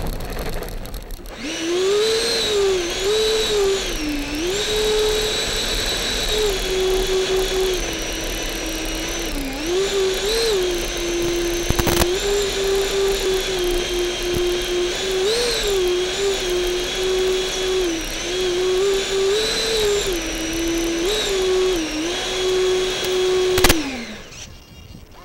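The RC model F-14 Tomcat's electric motor whines as it taxis on the ground, its pitch rising and falling with the throttle. There is a single sharp click near the middle. Near the end the motor winds down and cuts off with a click.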